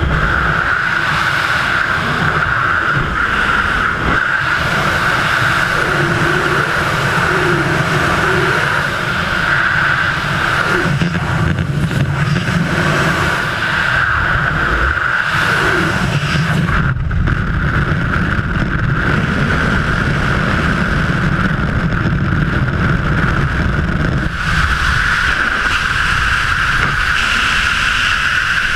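Freefall wind rushing over the camera's microphone during a head-down skydive: a steady loud rush with a constant whistling tone through it.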